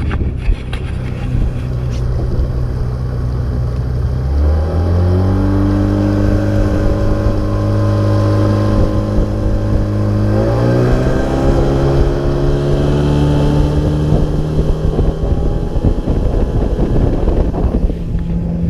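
A small fishing boat's engine being opened up: the revs climb sharply about four seconds in and again about ten seconds in, then hold steady at speed.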